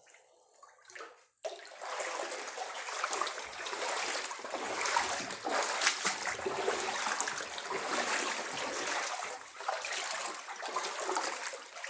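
Floodwater sloshing and splashing as someone wades through a flooded basement, starting suddenly about a second and a half in and going on unevenly.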